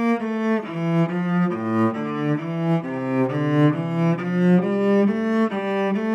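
Solo cello playing a melody in short notes, about two to three a second, moving up and down in its low-to-middle range.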